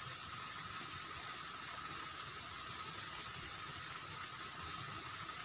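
Steady rush of shallow water flowing over rocks in a small irrigation ditch.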